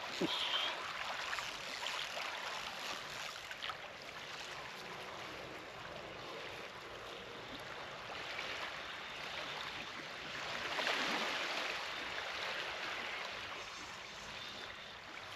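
Small waves lapping on a rocky shore, rising and falling, with a louder swell about ten seconds in.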